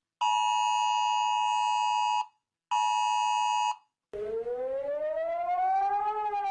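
A two-tone emergency alert tone sounds twice, first for about two seconds, then for about one second after a short gap. After a brief silence a wailing civil-defence siren starts, rising slowly in pitch and beginning to fall near the end.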